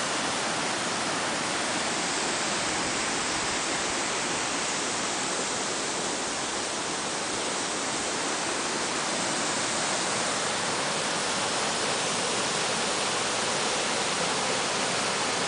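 Steady rushing roar of a large waterfall, even and unbroken.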